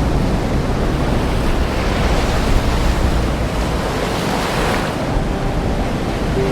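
Ocean waves washing in, a steady rush that swells and eases.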